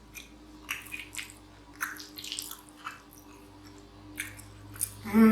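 Sticky, wet squishes and small irregular clicks from very cheesy macaroni and cheese being worked close to the microphone.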